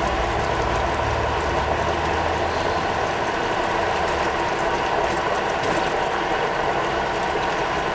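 Steady mechanical rattling with a few steady tones, over a low hum that fades after about three seconds.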